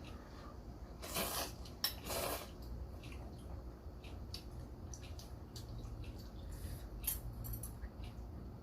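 Eating sounds as a piece of spicy kimchi is bitten and chewed. Two short noisy bites come about one and two seconds in, followed by scattered small wet clicks and smacks of chewing.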